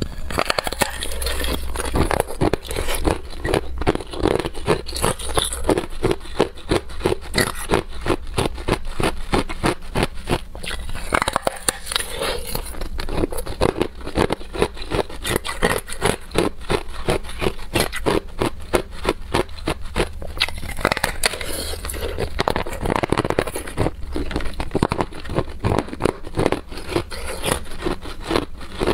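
Hard clear ice, frozen in a plastic water bottle, being bitten and chewed close to the microphone: a rapid, unbroken run of crunching and cracking.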